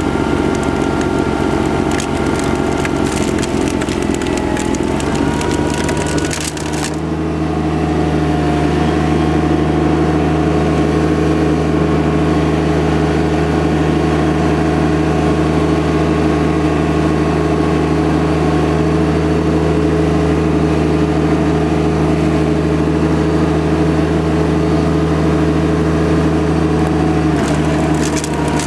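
John Deere 2210 compact tractor's three-cylinder diesel running steadily under load, driving a front-mounted snowblower that is throwing snow. For the first several seconds a crackle of sharp clicks sits over the engine. It stops about seven seconds in, leaving an even engine drone.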